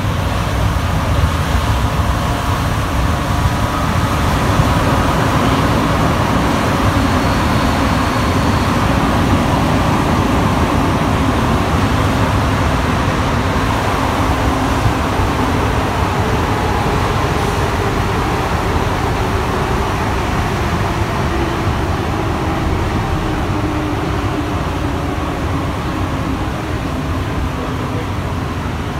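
Alstom NS-93 rubber-tyred metro train heard from inside the car while running between stations: a steady, loud rumble of tyres and running gear that grows a little quieter toward the end.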